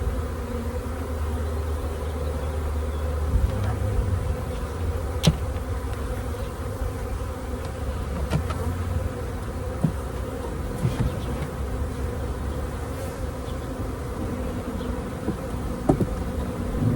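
Honeybees buzzing steadily in large numbers around an open hive as a bee package is installed, with a few light knocks about a third of the way in, then again later.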